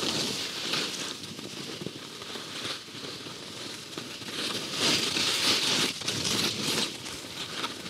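Skis scraping and hissing over chopped-up, hard-packed snow, with a louder stretch of scraping about four and a half seconds in that lasts a couple of seconds.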